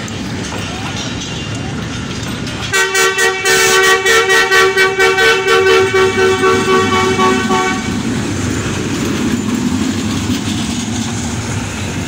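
A two-tone horn blown in a rapid string of short toots, about four a second for some five seconds, over the low rumble of train coaches rolling past.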